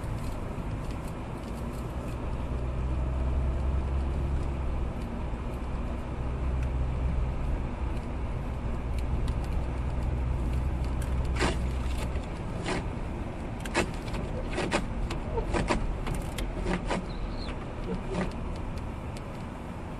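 Car driving on a snowy street, heard from inside the cabin: a low engine and road rumble that drops away about twelve seconds in. Over the second half come a dozen or so irregular sharp clicks and knocks.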